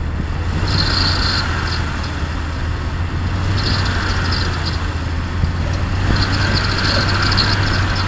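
Jeep Grand Cherokee engine idling steadily, with an on-and-off squeak that comes in three spells of quick high chirps. The squeak doesn't happen all the time; the owner suspects the belt or a bearing going in a pump.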